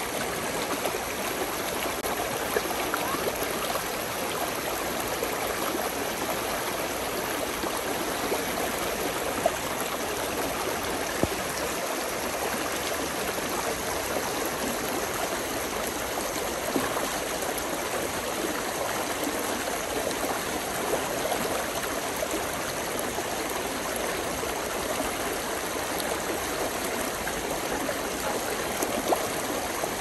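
Small brook babbling steadily, with a few brief louder splashes.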